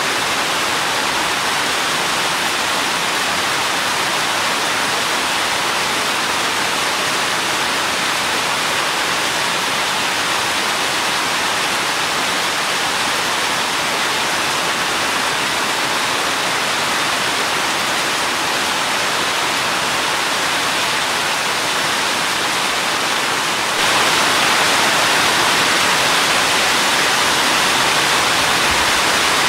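Steady rain falling, an even hiss. It turns a little louder and brighter near the end.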